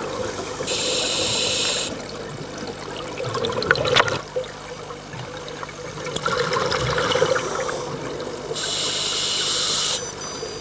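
Scuba diver breathing through a regulator underwater: a hiss of inhaling about a second in and again near the end, with bursts of exhaled bubbles in between.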